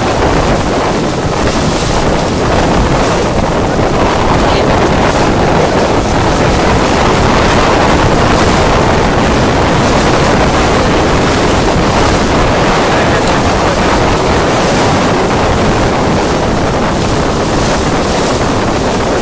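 Wind buffeting the microphone over water rushing past a moving boat on open, choppy ocean: a loud, steady rush.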